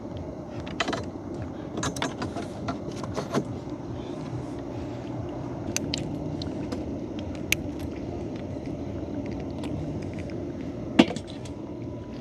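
Boat engine running steadily, with scattered clicks and knocks from the gill net and fish being handled and one sharp knock about eleven seconds in.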